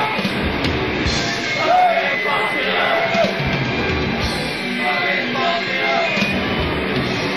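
Loud, distorted hardcore punk and noise music: electric guitars, bass and drums with harsh noise, played as a dense, continuous wall of sound.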